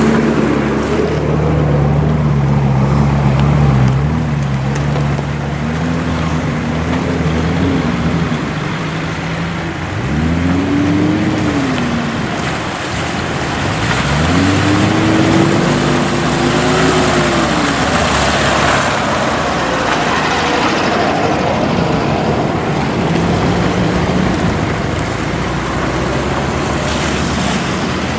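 Nissan Patrol 4x4's engine running, revving up and falling back twice, briefly about ten seconds in and for longer a few seconds later, over a steady rumble.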